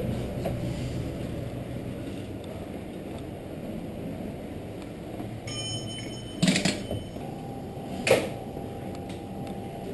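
Bicycle being wheeled across a hard indoor floor with a low steady rumble, a brief high squeal and then two sharp knocks about six and a half and eight seconds in.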